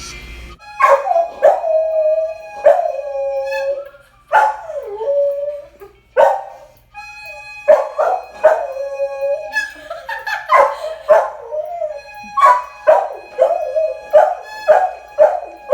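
A young dog howling and barking in a long run of calls, some drawn-out and wavering in pitch, others short and sharp. Background music plays underneath.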